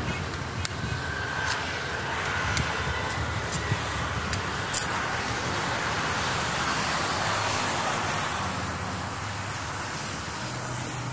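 A curved, sickle-like knife chopping into a palmyra palm fruit (nungu): about six sharp knocks, roughly one a second, over the first five seconds. Steady street traffic noise runs underneath.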